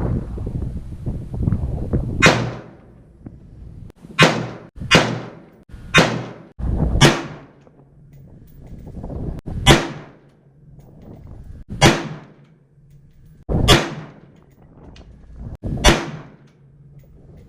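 Rifle shots, about nine at uneven intervals of one to three seconds, fired while zeroing AR-15 rifles chambered in 5.56.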